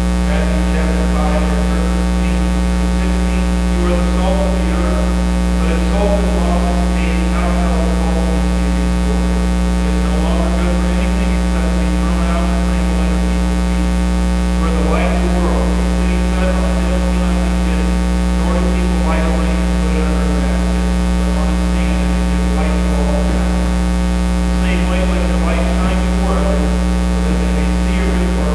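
Loud, steady electrical mains hum in the recording. Faint, indistinct voice-like sounds come and go beneath it.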